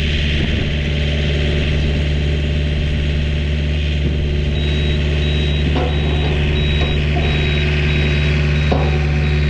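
Compact excavator's diesel engine running steadily at an even speed, with a couple of light knocks in the second half.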